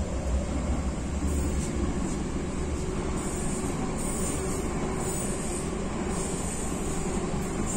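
Steady running noise inside an MTR Tung Chung line K-Train (Hyundai Rotem electric multiple unit) under way: a low rumble of wheels on rail with a faint steady tone over it.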